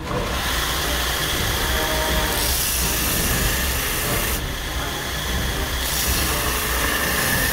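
Belt grinder running with a steel knife blade held to its abrasive belt: a steady motor hum under a hissing grinding rasp. The rasp swells twice, for about two seconds each, as the blade is pressed harder into the belt.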